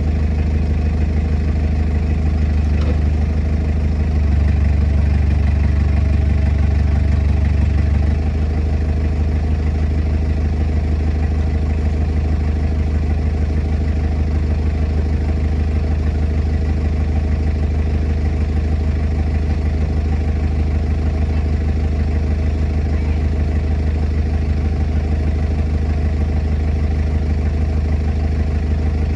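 Large diesel engine running steadily at idle, a little louder and deeper for a few seconds about four seconds in.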